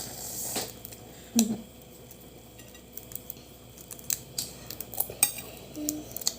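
Scattered light clicks and clinks of utensils and dishes during a meal, thickest in the second half, with a short vocal sound about a second and a half in.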